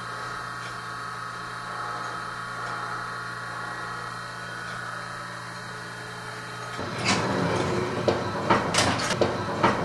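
A steady hum for about seven seconds, then acoustic guitar music starts with a run of strums.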